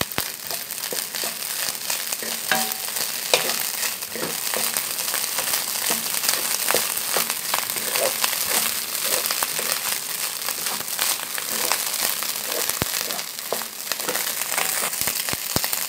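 Cooked rice sizzling as it is stir-fried in oil, a wooden spatula tossing and scraping it around the pan with many small ticks and scrapes over a steady hiss. The rice is being fried until the grains shrink and turn slightly crisp.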